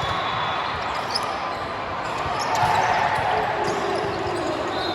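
Gym noise during a youth club match: balls bouncing and thudding on a hard court floor against a steady wash of crowd voices in a large hall.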